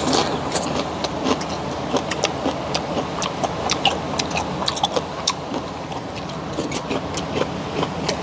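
Five-layer pork belly sizzling on a griddle over a portable gas stove, the fat crackling and popping in irregular sharp snaps, several a second, over a steady hiss.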